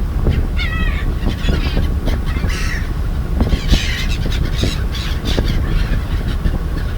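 Seagulls calling in a run of squawks, several times over, against a steady low rumble of wind and boat noise.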